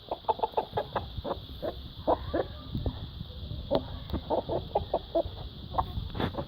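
Mother hen clucking in a quick run of short notes, several a second: her food call, telling her chick that there is food.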